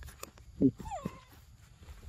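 Young macaque giving a few short calls, one falling in pitch about a second in.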